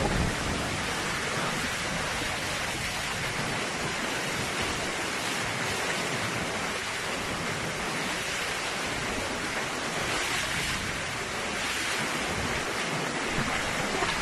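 Typhoon wind and heavy rain: a steady rushing noise with no let-up.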